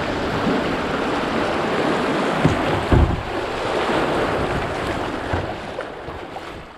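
Steady rush of river water pouring through a cascade, with wind buffeting the microphone. A low thump comes about three seconds in, and the rush fades near the end.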